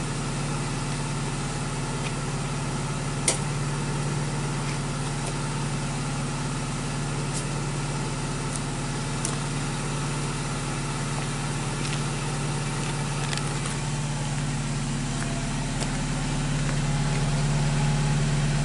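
BMW 316i E90's 1.6-litre four-cylinder petrol engine idling steadily through its modified exhaust, heard at the tailpipe shortly after a winter cold start, while still on the raised cold idle. It grows a little louder near the end, and there is one sharp click about three seconds in.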